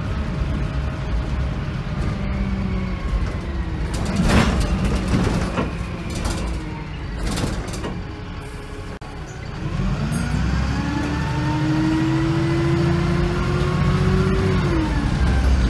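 Diesel engine and drivetrain of a VDL SB200 Wright Commander single-deck bus heard from inside the saloon. The engine note falls as the bus slows, with a sharp burst of noise about four seconds in. It goes quieter for a few seconds, then the engine note rises steadily as the bus pulls away and drops with a gear change near the end.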